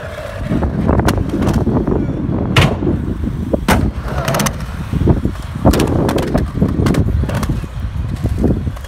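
Skateboard wheels rolling with a continuous low rumble, broken by many sharp clacks of the board popping, landing and striking ramp edges.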